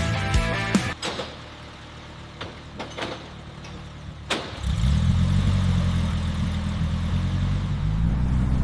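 Aston Martin DB5's straight-six engine starting about halfway through, after a few sharp clicks, and settling into a steady idle.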